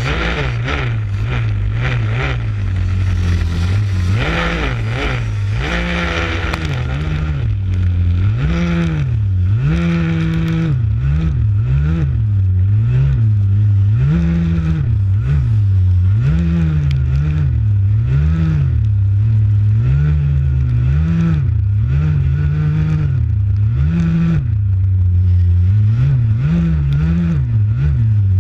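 Small youth ATV engine revving up and down over and over as the quad races along a trail, its pitch rising and falling every second or two.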